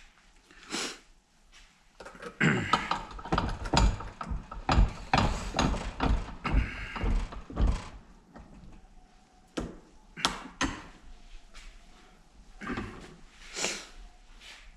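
Hand-handled metal hinge and spring parts knocking and clattering on a workbench: a busy run of knocks and rattles for several seconds, then a few separate clicks.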